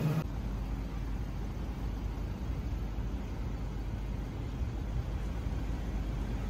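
Steady low rumble of city street background noise, even throughout with no distinct events.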